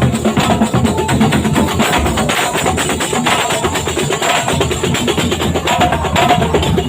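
Traditional Banyuwangi procession music: fast, dense drumming and percussion with a held melody line over it.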